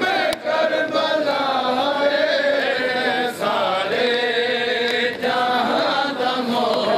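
Men's voices chanting a noha, a Shia mourning lament, in a wavering melodic line with brief breaks between phrases.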